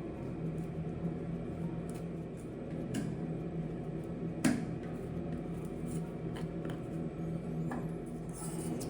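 A few light clicks and scrapes of small-scale handwork, the sharpest about four and a half seconds in, over a steady low hum.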